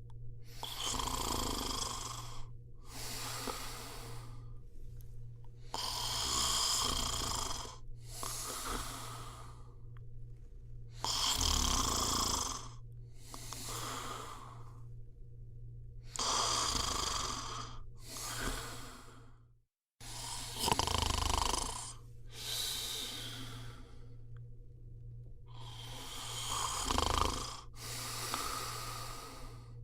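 A person snoring in slow, regular breaths, each a snoring inhale followed closely by a shorter outbreath, about one breath every five seconds. A steady low hum runs underneath.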